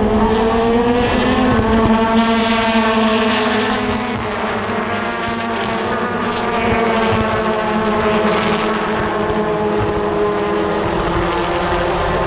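A pack of BTCC touring cars racing just after the start, their turbocharged 2.0-litre four-cylinder engines heard together at high revs. Several engine notes overlap, rising and falling through the gears.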